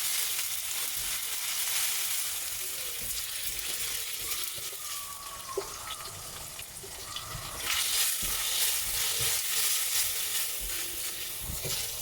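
Onions and ginger-garlic paste sizzling in hot oil in a pan while being stirred, with occasional knocks of the spoon on the pan. The sizzle eases a little in the middle and picks up again about two-thirds of the way through.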